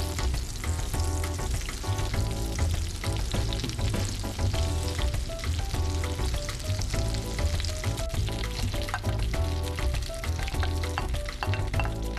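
Butter and oil sizzling and bubbling in a hot nonstick frying pan, a steady frying hiss, with background music underneath.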